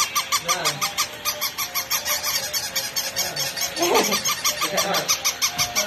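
Several battery-operated walking toy puppies running at once: rapid, even electronic ticking and beeping, about five a second, with yelping barks from their toy speakers about half a second in and again around four and five seconds.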